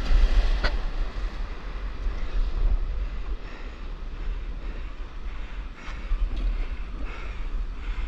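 Wind buffeting the microphone over the steady rush of churning whitewater foam from broken surf, with one sharp tap just under a second in.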